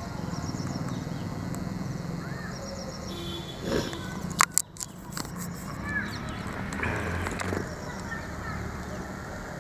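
Outdoor ambience with a few short bird chirps scattered through it, and a brief cluster of sharp clicks about halfway through.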